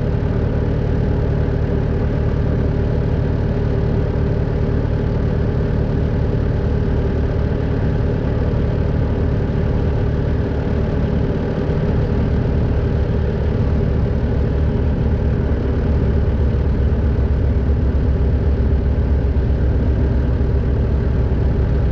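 Skid steer engine running steadily under load as it pulls a stuck pickup out on a chain, growing slightly louder in the last few seconds.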